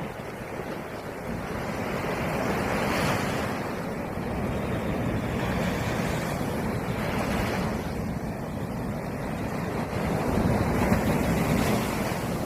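Sea waves breaking on the shore, the surf swelling and washing in about every four seconds over a steady rush of water.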